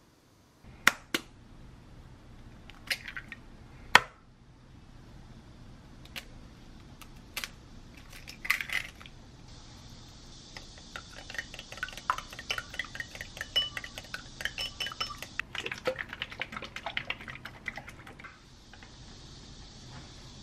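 A few sharp clinks of dishes, then a long run of quick, regular clicks as a utensil beats two eggs with salt in a glass bowl.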